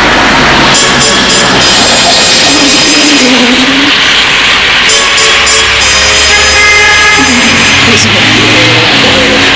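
Loud background music: a rock-style song playing steadily.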